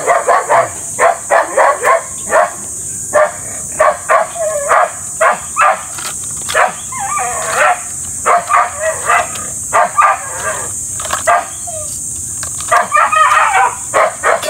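A dog barking over and over in quick short barks, about two or three a second, with a brief pause shortly before the end.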